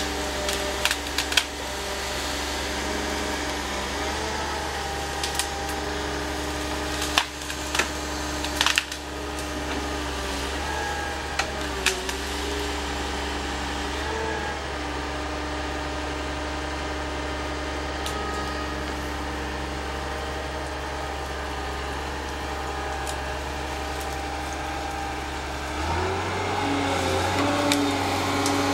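Excavator diesel engine running steadily under hydraulic load while wood cracks and snaps sharply several times in the first dozen seconds, as the shear gripper grips and breaks a tree. Near the end the engine revs up to a higher note.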